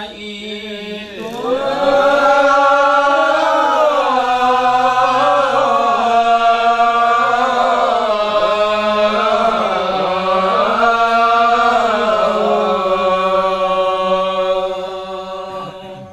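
A man chanting a verse of a Sasak hikayat (nembang) into a microphone, in long, held, wavering notes. The chant swells up about a second and a half in and trails off near the end.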